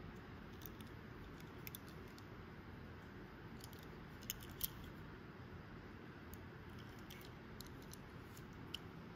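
Light clicks and ticks of a small die-cast model car being handled in the fingers, with two sharper clicks about halfway through and another near the end, over a low steady hiss.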